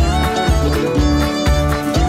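Background music: a lively instrumental tune with a steady beat about twice a second.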